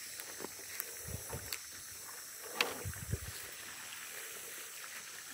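Footsteps on grassy ground: a few faint, irregular thumps over a steady low outdoor background.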